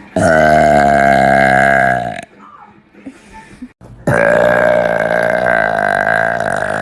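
Two long, loud burps, each with a steady pitch. The first lasts about two seconds; the second, longer one starts about four seconds in.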